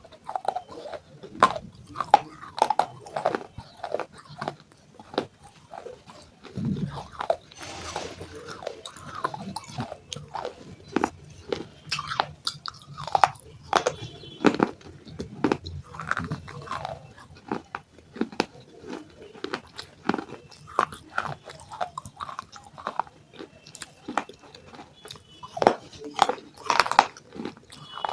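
Close-miked crunching and chewing of baked clay pieces, with many sharp, irregular bites and crunches.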